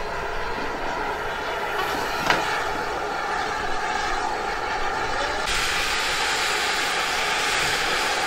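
Steady hiss and hum from the Merchant Navy class steam locomotive 35006 'P&O', with a single sharp click about two seconds in. About five and a half seconds in, a louder hiss of escaping steam starts suddenly and carries on.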